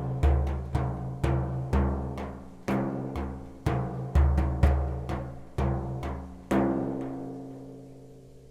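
A low-pitched, ringing drum struck about every half second in an uneven rhythm. The last stroke is left to ring and fade away.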